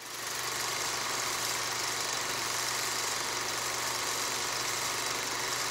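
A steady mechanical running noise, an even hiss over a low hum, fading in at the start and holding level.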